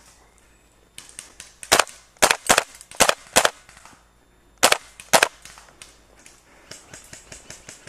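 Propane-powered VFC-Umarex UMP 45 gas-blowback airsoft rifle fired in single shots: seven sharp cracks with the bolt snapping back, irregularly spaced, five in quick succession and two more about a second later. Fainter ticks follow near the end.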